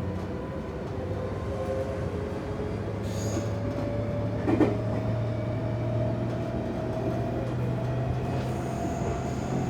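Running noise heard inside the cabin of a Semboku Rapid Railway 7000 series electric train: a steady low hum with a faint whine slowly rising in pitch. A single sharp click comes about halfway through.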